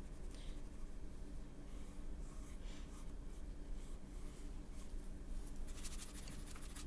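Faint scratchy strokes of a paintbrush on watercolor paper held in the hand, with light rustling of the sheet, over a steady low hum.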